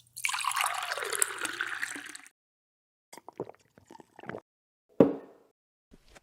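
Horror sound effects: a noisy rush lasting about two seconds, a few light clicks and knocks, then one sharp thud about five seconds in that fades quickly.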